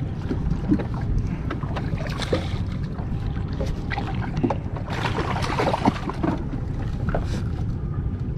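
A fishing boat's motor running steadily at trolling speed, a low rumble mixed with wind and water noise. Scattered short knocks and clicks sound over it, and a louder rush of noise comes about five to six seconds in.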